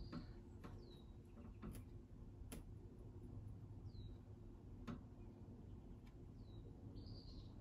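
Faint, scattered taps and clicks of a white soft pastel stick pressed onto sanded pastel paper to dab small highlight marks, about five sharp ticks irregularly spaced. Three or four faint short high chirps, each falling in pitch, come through as well.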